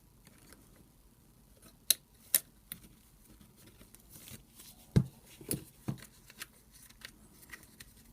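Scattered small clicks and knocks of plastic and metal as the carbon brush holders are worked and popped out of an AEG BH25 rotary hammer's motor housing, the loudest knock about five seconds in.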